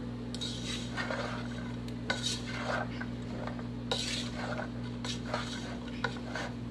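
Wooden spoon stirring food in a metal cooking pot, with irregular scrapes and knocks against the pot roughly every half second, over a steady low hum.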